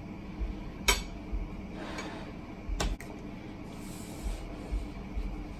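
Eating sounds: a metal fork clicks twice against a ceramic plate, about a second in and again near three seconds, with quiet chewing in between.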